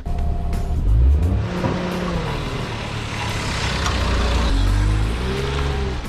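Kei van's small engine pulling away and accelerating. The pitch climbs, falls back at a gear change after about two seconds, then climbs again.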